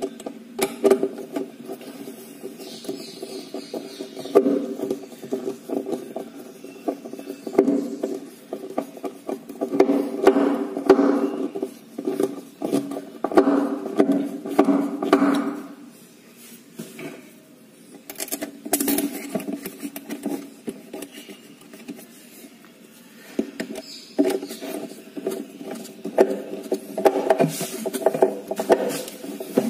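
Clicks, taps and rattles of a metal bi-fold lift-up cabinet mechanism being handled and fitted against the cabinet side. Under them runs a steady low drone made of several tones, which swells and fades, loudest about halfway through.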